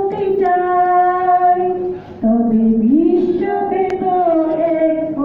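A single voice singing a Bengali song, holding long notes, with a short break about two seconds in before a lower note that rises.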